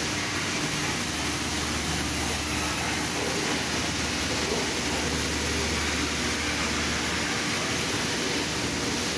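Steady drone of factory machinery in a press shop: a constant low hum under an even hiss, with no strokes or impacts.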